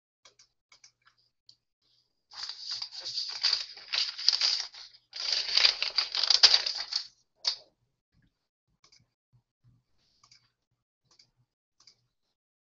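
Rustling and clicking close to the microphone in two dense stretches of about two seconds each, followed by a single click; faint scattered ticks before and after.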